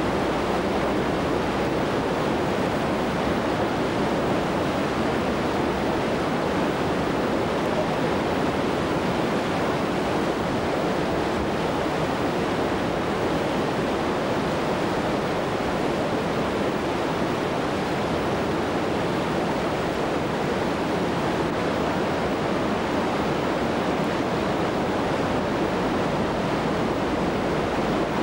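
Whitewater river rapids rushing steadily, a dense even noise of fast water over rocks with no change in level.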